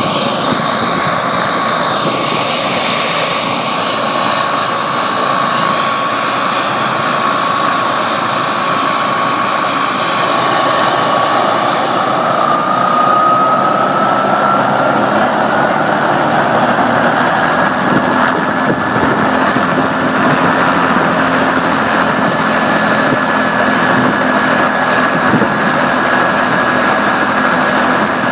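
Bell 206 JetRanger helicopter running on the ground: the turbine whine and the rotor wash come on steadily. About a third of the way in, the whine rises in pitch over several seconds and then holds steady at the higher pitch as the engine and rotor speed up.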